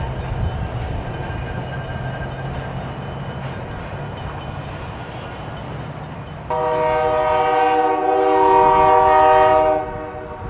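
Diesel freight locomotive rolling by with its engine running, then its air horn sounds one long chord of several notes about six and a half seconds in, lasting about three seconds.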